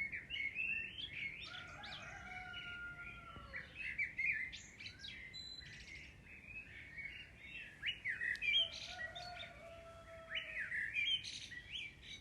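Several birds chirping and twittering: quick, overlapping high chirps and trills with a few longer whistled notes.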